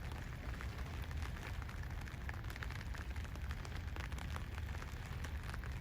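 Steady low rumble with many faint, scattered crackles and clicks throughout.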